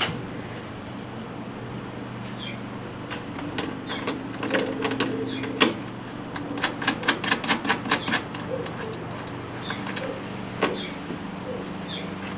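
A run of quick, sharp clicks, about seven a second, a little past the middle, among scattered single knocks, over a steady low hum.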